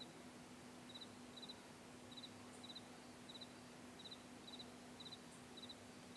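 Crickets chirping faintly in short groups of two or three pulses, about twice a second, over a faint steady low hum.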